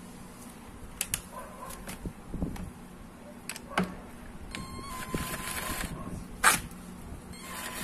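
A cordless impact wrench runs briefly, a whir with a steady tone lasting about a second and a half, spinning down the magneto (flywheel) nut on a Yamaha Aerox 155 scooter; it runs again briefly near the end. Sharp clicks and knocks of the socket and tool being handled on the nut come before it, the loudest a little after the first run.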